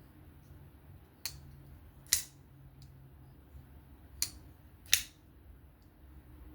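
Miguron Moyarl folding knife being flicked open and shut: four sharp metallic clicks as the blade snaps out against its lock and back into its detent, the second and fourth loudest.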